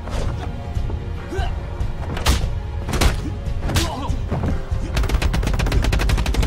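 Film fight sound effects over a music score: a few separate heavy punch and kick impacts, then from about five seconds in a rapid flurry of blows.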